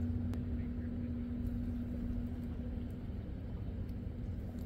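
Steady low mechanical rumble with a constant hum, like an engine or motor running, with a few faint clicks over it.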